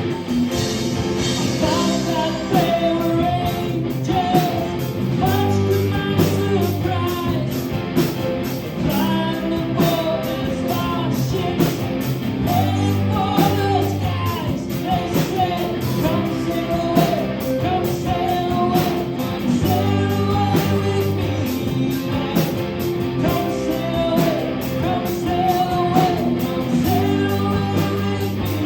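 A rock band playing a song: steady drums and bass under guitar, with a wavering lead melody on top.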